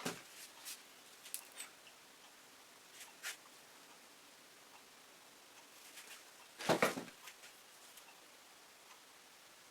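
Scattered soft taps and scrapes of a spatula working acrylic paint on a stretched canvas, a few near the start, a couple around three seconds in, and the loudest cluster about seven seconds in, over quiet room tone.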